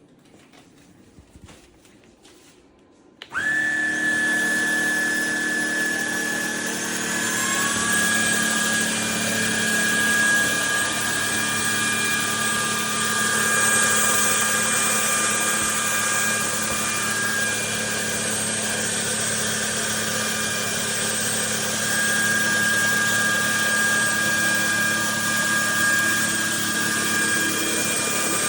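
A few faint clicks, then the Trucozie cordless stick vacuum's motor switches on suddenly about three seconds in. It whines up in pitch over the next few seconds, then runs steadily.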